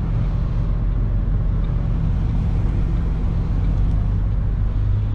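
Diesel engine of a truck-mounted crane running steadily at low revs as the heavy truck reverses slowly.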